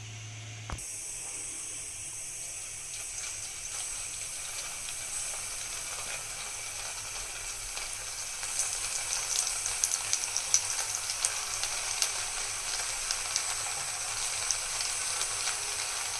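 Avalakki kaddi (flattened-rice snack sticks) frying in hot oil. A steady sizzle starts abruptly about a second in, and from about halfway on it is joined by frequent sharp crackles and pops.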